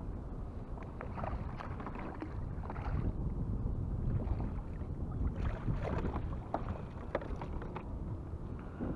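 Splashing and short knocks as a hooked speckled trout thrashes at the surface and is scooped into a landing net beside a kayak, with a steady low rumble of wind on the microphone underneath. The splashes and knocks come in two spells, about a second in and again in the second half.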